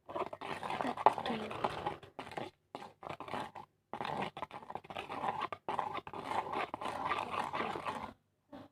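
A spoon scraping and stirring in a plastic container, mixing powdered detergent with water, in irregular scratchy strokes with clicks.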